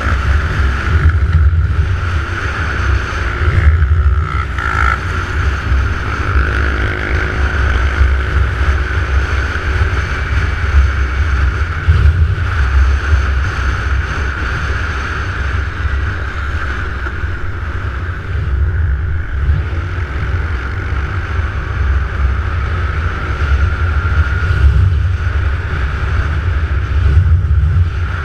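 Wind buffeting an action camera's microphone on a motorbike at road speed, over a steady engine drone. A few seconds in, another engine briefly rises in pitch.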